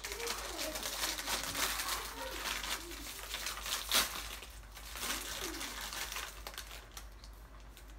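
Crinkling and rustling of something being handled, with one sharp click about four seconds in.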